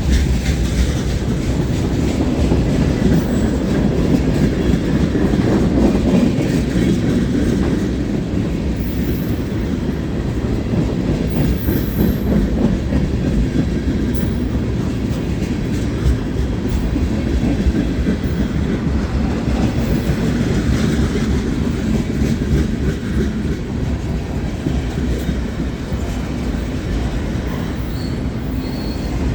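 Mixed freight train cars rolling past at close range: a steady, loud rumble of steel wheels on rail with a continuous clickety-clack over the rail joints.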